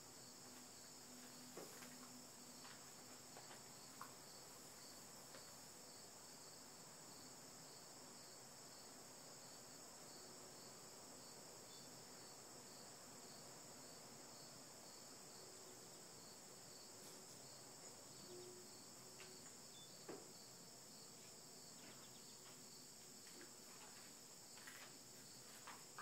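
Faint, steady insect chorus: a continuous high-pitched trill, with a few soft clicks scattered through it.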